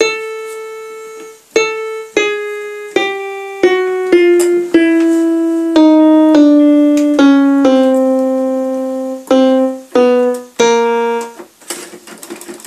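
Casio electronic keyboard sounding single notes one at a time, about fourteen in all, mostly stepping down in pitch, each struck and then fading. The keys are being pressed one by one to test which ones sound and which are dead.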